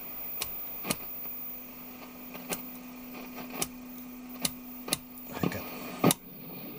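About eight sharp clicks at irregular intervals from a 1958 RCA portable TV chassis under test, over a low steady hum that stops about five and a half seconds in.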